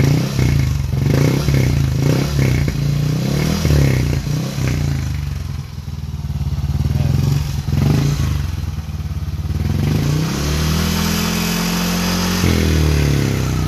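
Yamaha NMAX v2 scooter's single-cylinder four-stroke engine revved through an MT8 aftermarket exhaust: quick repeated throttle blips over the first few seconds, another rev about eight seconds in, then the revs drop back and run steadily.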